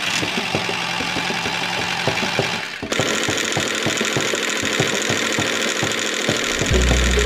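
A small engine running with a rapid knocking rattle, cut off and picked up again in a changed tone about three seconds in.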